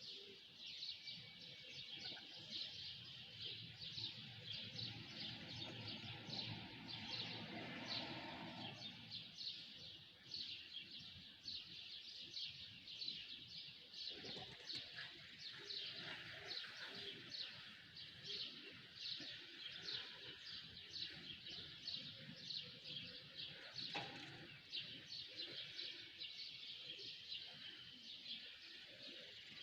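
A chorus of many small birds chirping together: rapid, overlapping high chirps with no pause.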